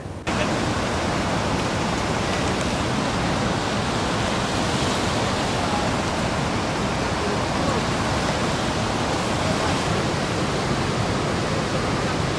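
Rushing water of white-water river rapids: a steady, even rush that cuts in abruptly just after the start.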